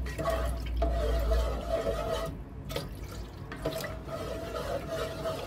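Water poured from a plastic jug into a rice cooker's inner pot of yellow turmeric liquid, splashing and gurgling into it as a wooden spatula stirs.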